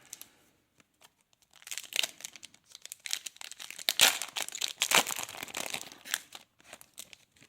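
A trading-card pack's wrapper being torn open and crinkled by hand, a dense irregular crackle that starts about two seconds in and dies away near the end.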